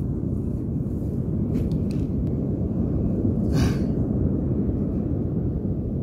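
Steady low rumble of wind and rough surf on an open beach, with a brief hiss about three and a half seconds in.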